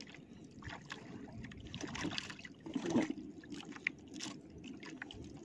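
Water lapping and sloshing against a small outrigger fishing boat, with scattered light knocks and scrapes from the fishing line being handled.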